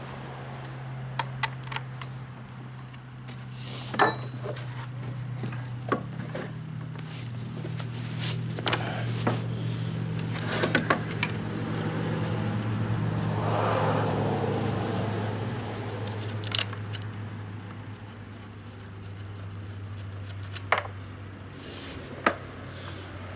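Scattered metallic clicks, clinks and knocks of tools and parts handled while opening up a chainsaw to clean it, over a steady low hum.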